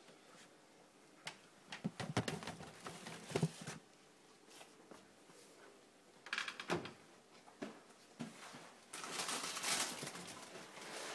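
Kitchen handling sounds: a few knocks and clatters from a pantry cupboard and the things on its shelves. Near the end comes a louder crinkling rustle as a cardboard cereal box and its liner are handled and opened.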